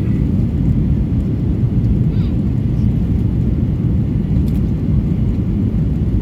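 Steady low rumble of a Boeing 737-800's CFM56 jet engines, even throughout.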